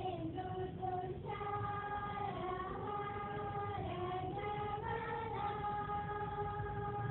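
A group of schoolchildren singing a prayer together in unison, holding long notes that step slowly from one pitch to the next.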